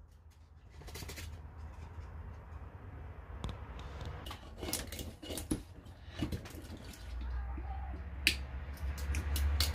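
Knife shaving and carving wood on a chopping stump: irregular sharp cutting and scraping strokes that come more often through the middle and near the end.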